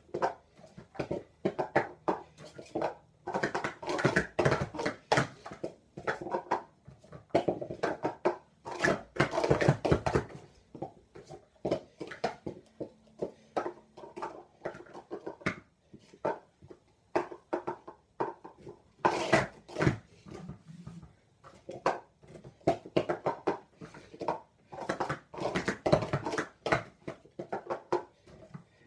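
Plastic sport-stacking cups being rapidly stacked up and swept back down: quick runs of light plastic clacks and taps, coming in bursts with short pauses between runs.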